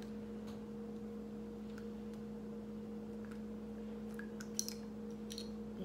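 Quiet room with a steady hum and a few faint clicks and taps of a makeup pencil being handled, one slightly sharper click a little past the middle.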